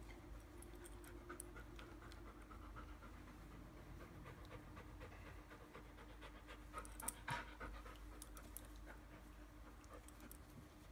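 Dog panting faintly, with a brief louder burst of clicks and noise about seven seconds in.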